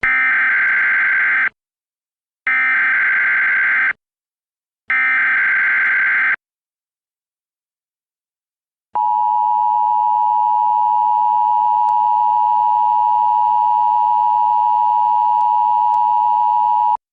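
Emergency Alert System signal opening a new alert: three short bursts of SAME header data, each about a second and a half, then after a pause the two-tone attention signal, held steady for about eight seconds before it cuts off.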